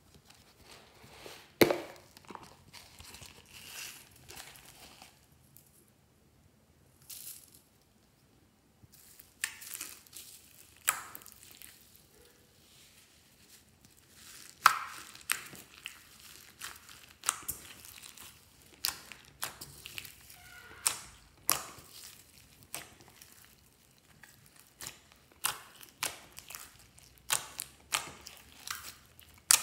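Crinkling and a sharp snap as a wafer box is handled. Then, from about ten seconds in, glossy slime loaded with foam beads is pressed, folded and stretched by hand in a glass tray, giving sharp wet pops and clicks about every half second to second.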